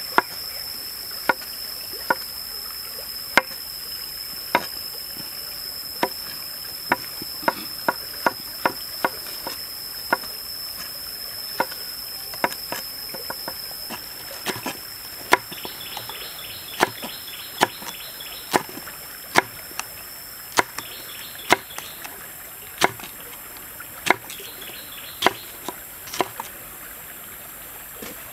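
Kitchen knife chopping on a wooden cutting board while mushrooms and a green chili are cut: sharp knocks at an uneven pace, about one a second.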